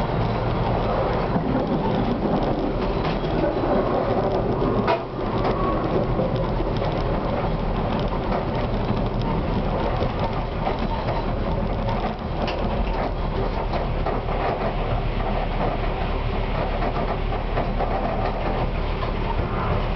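Konstal 105Na tram running at speed along street track, heard from inside the driver's cab: a steady rumble of wheels on rail and running gear, with one sharp knock about five seconds in.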